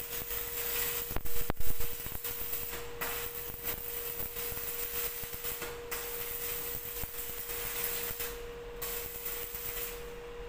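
Electric arc welding on a steel lift frame: a steady noisy hiss with a steady humming tone underneath, broken by a few sharp knocks about a second and a half in.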